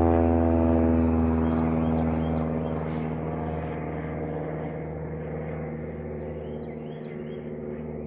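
A steady engine drone with many overtones, slowly fading as it moves away. A few faint, short high chirps come in near the end.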